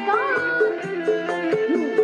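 Recorded music with a steady beat and a melodic line, played from a laptop through a Sansui A1000 stereo amplifier into loudspeakers. It is a test signal for the amplifier's repaired left-channel input.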